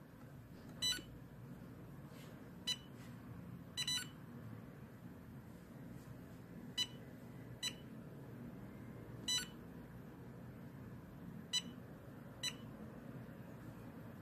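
Industrial HMI touchscreen panel giving a short high key beep each time a finger taps it: about eight beeps at irregular intervals, over a low steady hum.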